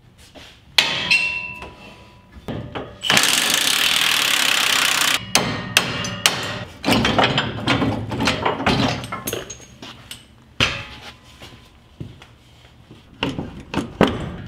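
Hand tools and metal fittings clanking and clicking as the hood of a military Humvee is unlatched and taken off. A sharp metallic knock rings briefly about a second in. A loud, even rushing noise runs for about two seconds, and then irregular clicks and knocks follow.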